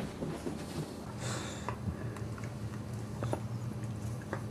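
Boxer dogs play-wrestling: an adult Boxer mouthing a puppy, with a sniff or snort about a second in and small scuffling clicks, over a low steady hum.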